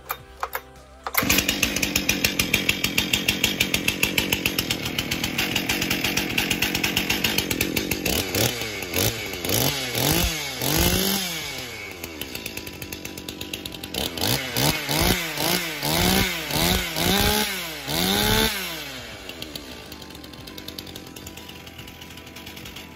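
Stihl MS261C two-stroke chainsaw, freshly ported and rebuilt, running from about a second in. Midway it is revved in a string of short throttle blips, each rising and falling in pitch, then it settles back to a quieter idle near the end.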